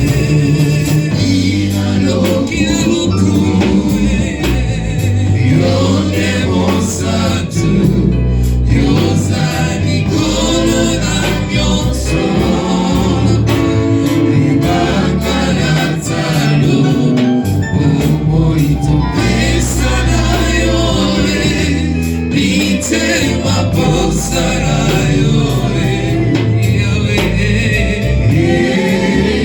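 A church choir and congregation singing a gospel song, backed by a band with a steady bass line and regular percussion hits.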